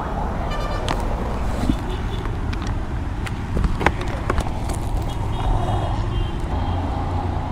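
Street traffic with a steady low rumble. Knocks, clicks and rubbing from a helmet-mounted camera being moved, with the sharpest clicks in the middle.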